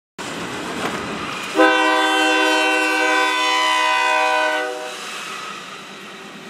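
A diesel freight locomotive's air horn sounds one long chord of about three seconds, starting a little more than a second after the rumble of the passing freight train sets in. After the horn stops, the locomotives and cars keep rumbling and clattering by, growing quieter.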